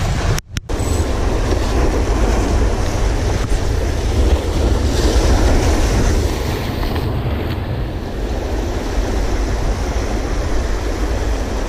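Surf breaking and washing over jetty rocks, a steady loud rush, with wind rumbling on the camera microphone. A brief dropout about half a second in.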